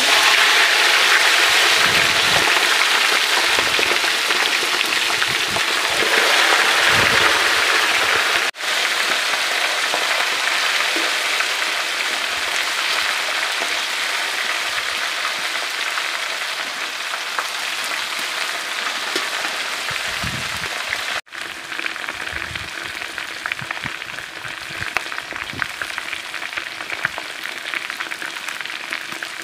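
Hot oil sizzling hard as a whole marinated country chicken goes into an iron kadai and deep-fries. The sizzle is loudest at first and eases slowly, breaking off for an instant twice.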